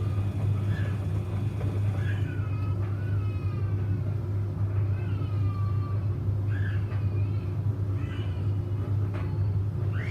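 Samsung washing machine running a 95°C boil wash, a loud steady low hum throughout. Several high, gliding whines, each about a second long, rise and fall over it.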